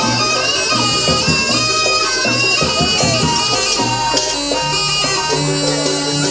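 Live jaranan gamelan music: a reedy, nasal shawm (slompret) plays a wavering melody over a steady drum beat, about two strokes a second. Held low tones join about four and a half seconds in.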